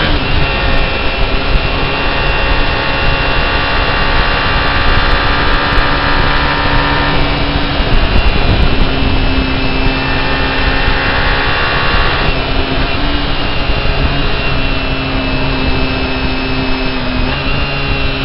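Onboard sound of a vehicle on the move: its engine runs with a steady note under heavy wind and tyre noise. The engine note steps to a new pitch about seven seconds in and again about twelve seconds in, as the throttle or gear changes, and shifts again near the end.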